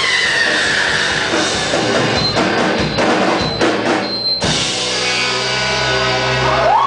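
Live indie rock band with drum kit, electric guitar and bass playing the end of a song: the drums pound dense hits, then stop abruptly about four and a half seconds in, leaving a held chord ringing out.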